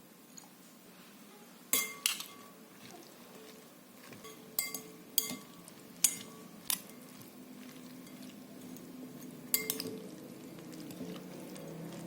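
Kitchen utensils and dishes clinking: about seven sharp, ringing clinks at uneven intervals.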